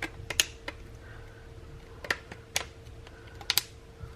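Sharp, irregular clicks and taps of small plastic phone parts being handled and pressed together, over a faint steady hum.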